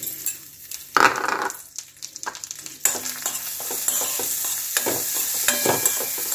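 Gobindobhog rice poured into hot ghee in a metal kadai, a loud rush about a second in, then sizzling steadily in the ghee while a metal spoon stirs and scrapes it against the pan: the rice is being lightly fried before going into the milk for payesh.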